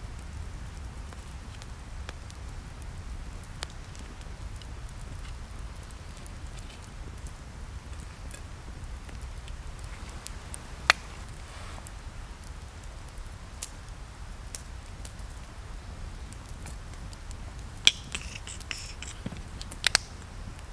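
Wood fire crackling in a camp stove: sparse sharp pops and clicks, with a few loud ones near the end, over a steady low rumble.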